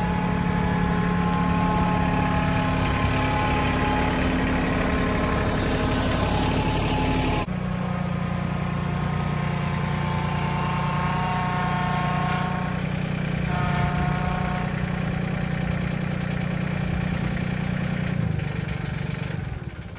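Mahindra 1626 compact tractor's three-cylinder diesel engine running steadily as the tractor is driven and backed up, with a thin whine above the engine note. The sound drops away near the end.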